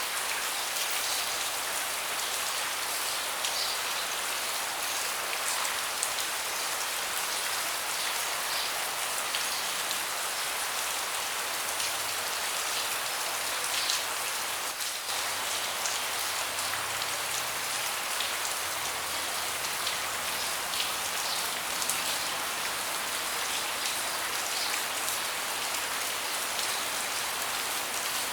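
Steady rain falling on a deck, a dense even hiss with scattered louder drops tapping.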